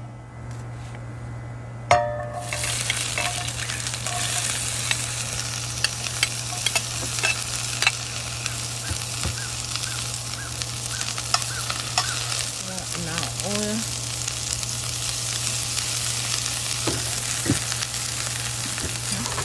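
Sliced onions going into hot oil in a stainless steel frying pan: a sudden sizzle about two seconds in, then a steady frying sizzle with scattered sharp clicks.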